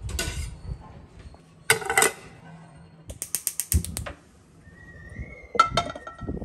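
A gas stove's electric igniter clicking rapidly, a quick run of about eight clicks, as the burner is lit. Near the end a metal pan clanks onto the burner grate, with other knocks of handling earlier on.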